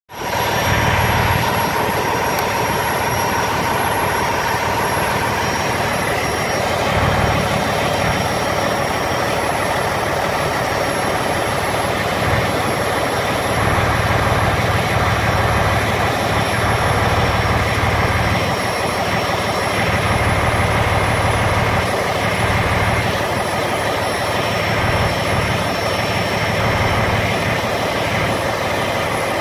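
Steady diesel engine and fan noise, with a low rumble that swells and eases every few seconds.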